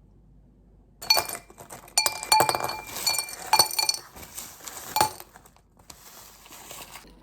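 Hard tableware clinking together: a run of sharp knocks with a ringing note, starting about a second in and ending near the end.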